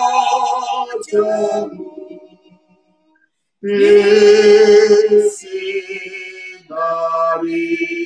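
Two women's voices singing a slow Indonesian funeral hymn unaccompanied, in long held notes. They stop for about a second and a half near the middle, then carry on.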